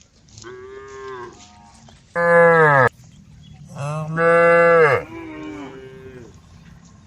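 Cows mooing: four long moos from more than one animal at different pitches. The two in the middle are much louder, and the first of those cuts off abruptly.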